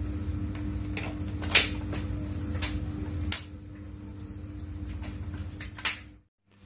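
Sharp plastic clicks and taps on a split air conditioner's freshly refitted indoor-unit cover, four in all, the second the loudest, over a low steady hum that drops out about three seconds in. A short high electronic beep follows a little after four seconds.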